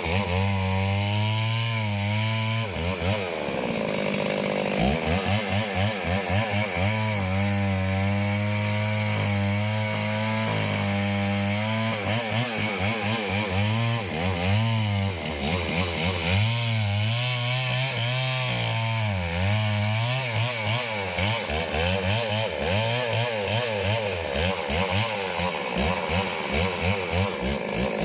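Small two-stroke chainsaw running at high speed while cutting wood, its engine note steady but wavering under load, with a brief dip in pitch about three to four seconds in.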